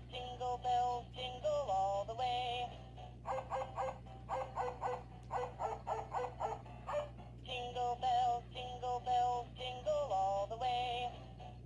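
Tinny electronic tune from a musical plush snowman toy's sound chip, with its opening phrase coming round again about halfway through.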